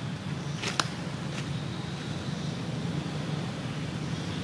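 Coconut husk being torn and bitten by a macaque: a few short, sharp cracks of snapping fibres about a second in. Under them is a steady low hum and a faint steady high tone.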